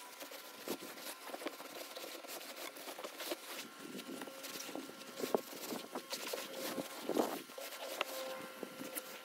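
A cloth being rubbed by gloved hands around the base of a stainless-steel stovepipe flue and its rubber roof boot: soft irregular scuffing and small handling clicks, with a couple of louder scrapes partway through.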